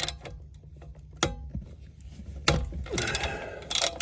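A ratchet wrench clicking in short runs on a 10 mm bolt, with a few knocks of the tool against metal and plastic.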